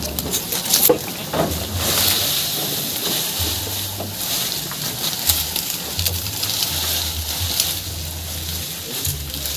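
Dense rustling and crackling of bundles of corn stalks and leaves being handled and tossed into a goat feeding trough. There is intermittent low rumble from wind on the microphone.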